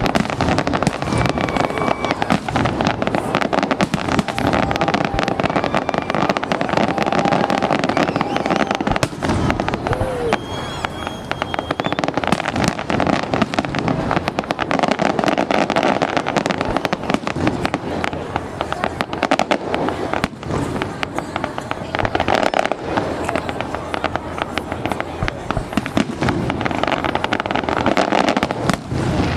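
Fireworks display: a dense, continuous barrage of bangs and crackling, with a few short whistles.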